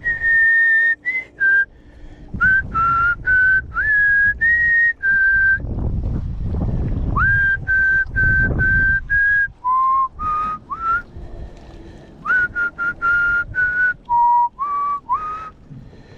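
A person whistling a tune: clear single notes that change pitch, with quick upward slides into several of them. Wind rumble on the microphone underneath swells in the middle.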